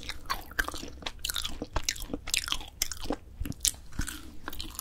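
Close-miked biting and chewing of grilled dried filefish fillet (jwipo): many irregular crisp crunches and sharp mouth clicks.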